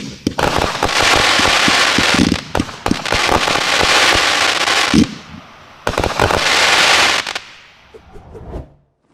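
Make My Day 500 g multi-shot firework cake firing: three long waves of dense crackling, broken by dull thumps, that fade out near the end.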